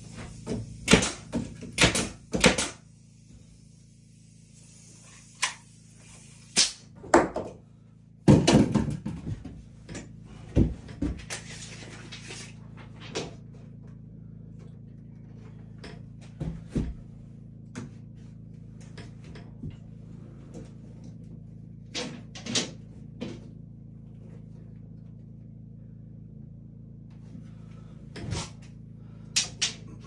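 Pneumatic nail gun firing a quick run of sharp shots into wood in the first few seconds, followed by scattered knocks and clacks of boards and tools being handled.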